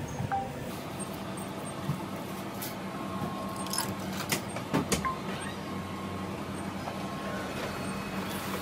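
Convenience-store multifunction copier humming steadily, with a few clicks and short electronic beeps about three to five seconds in as it is operated.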